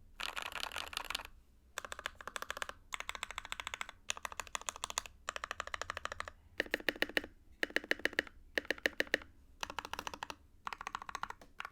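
Fast typing on an NK65 mechanical keyboard with Krytox 205g0-lubed Silk Emerald switches in an aluminium plate and stock keycaps: dense runs of keystrokes about a second long, separated by short pauses.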